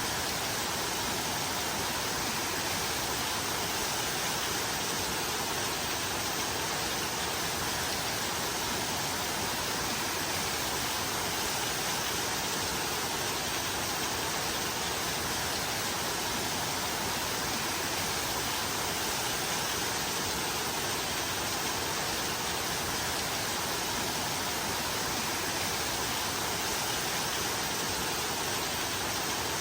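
Steady rain: an even, unbroken hiss of rainfall that holds the same level throughout.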